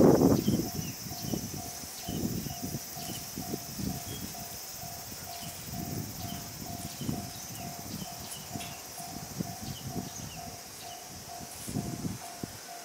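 Leafy garden plants rustling as they are handled and cut back with hand pruning shears, in irregular bursts that are loudest at the very start. A steady high insect drone runs underneath.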